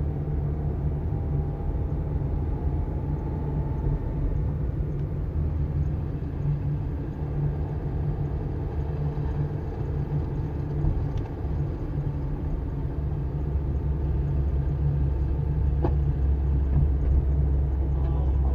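Steady low rumble of a car driving on the road, engine and road noise together, growing a little louder over the last few seconds.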